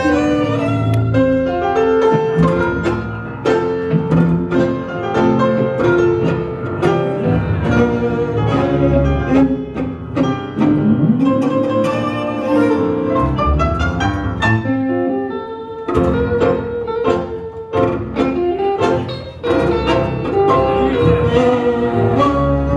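Live tango music from a quintet of violin, bandoneon, double bass, piano and guitar, with sharp accented strokes cutting through the melody.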